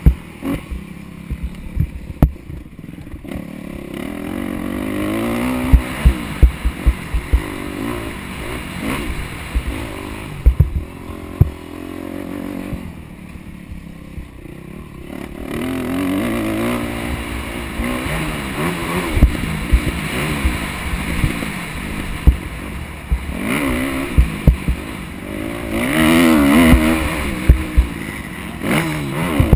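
Motocross dirt bike engine revving up and falling back again and again through turns and jumps, heard from the rider's helmet, with frequent sharp thumps and knocks as the bike hits the rough track.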